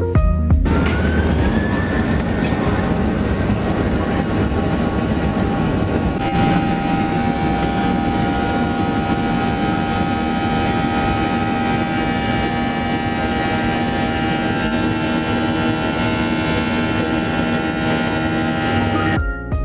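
Boeing 737 jet engines at takeoff thrust, heard from inside the cabin. A whine rises over the first couple of seconds as the engines spool up, then settles into a loud steady rush with high whining tones over a low rumble.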